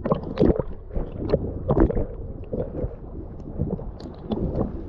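Seawater splashing and sloshing in irregular strokes around a swimmer, over a steady low rumble of wind on the microphone.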